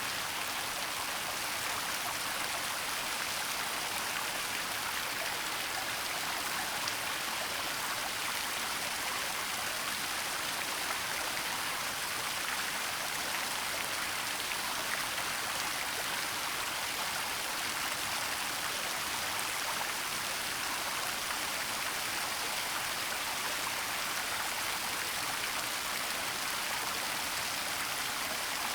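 Waterfall falling steadily in a forest: an even, unbroken rush of water, mostly hiss with little low rumble.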